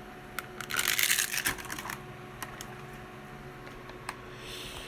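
Small plastic toy packaging being handled: light clicks and two short rustles, the first the loudest, as a boxed collectible figure is unpacked.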